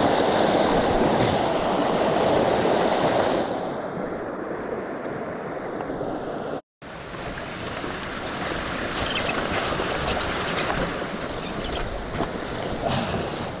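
Rushing runoff water in a flooded creek, a steady noisy wash that is loudest for the first few seconds. The sound drops out completely for a moment a little before halfway, and a few light clicks come later.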